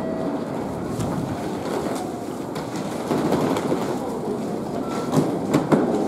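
Train noise in a station: a steady rumble that grows somewhat louder about halfway through, with a few sharp clicks near the end.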